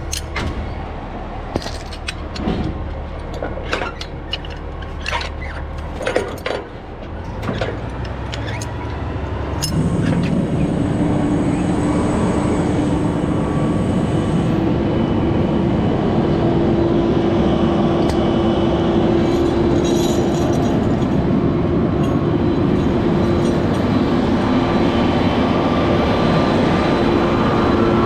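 Sharp knocks and clanks for about the first ten seconds. Then a heavy engine comes up and runs steadily at raised revs with a held hum over it, typical of a boom crane truck lifting the unit.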